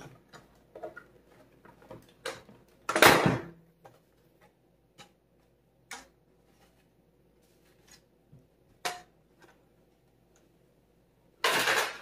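Hard plastic housing of a Roborock S6 MaxV robot vacuum being handled and lifted off its chassis. Scattered light clicks and taps, with a louder brief rustling scrape about three seconds in, another just before nine seconds, and a longer one near the end.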